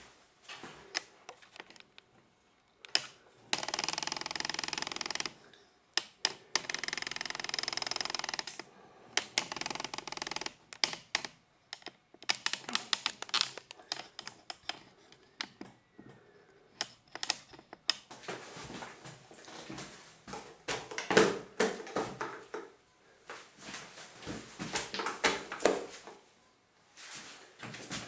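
Thick wet artex texture being rolled onto a wall with a pile roller: rapid irregular sticky clicks and crackles, with two longer continuous passes a few seconds in.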